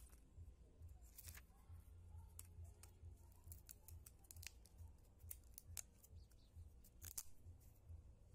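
Faint, scattered clicks and crinkles of thin plastic backlight sheets and a metal LCD frame being handled and peeled apart, with the sharpest clicks about a second in and near the end, over a low steady hum.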